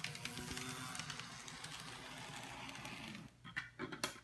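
Intermountain SD45-2 N scale split-frame diesel mechanism running on track: a steady small-motor whir with a fine rattle from the drivetrain, still not silent after a spring was fitted in its universal joint to quiet it. About three seconds in the sound drops away, followed by a few sharp clicks.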